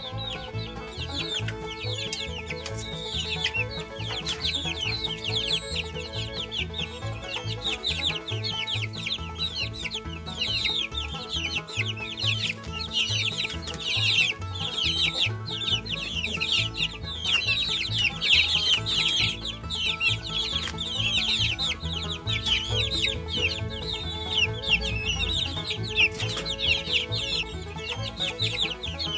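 A crowd of baby chicks peeping nonstop, many short high falling peeps overlapping, over soft background music.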